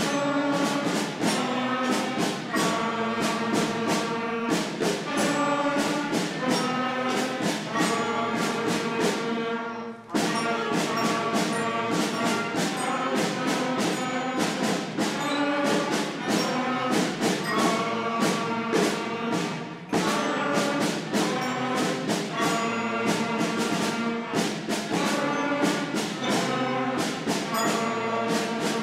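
Fifth-grade beginner concert band, brass and woodwinds with drum percussion, playing a simple tune in steady time. The playing stops briefly about ten and twenty seconds in, then picks up again.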